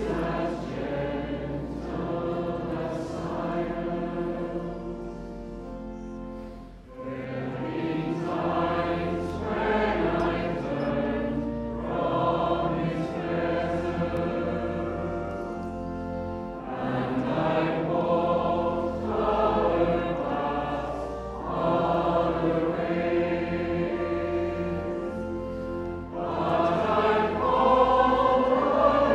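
Choir singing an offertory hymn over an accompaniment of held low bass notes, in phrases with short breaks about seven and sixteen seconds in, growing louder near the end.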